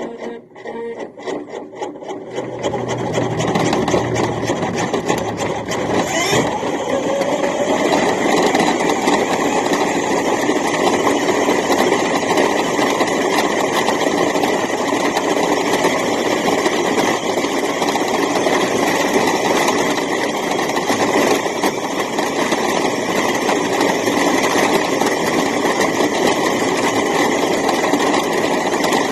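New Bright RC toy truck's small electric drive motor and gearbox running steadily, heard close up from a camera riding on the truck. A few clicks come first, and the motor starts about two seconds in.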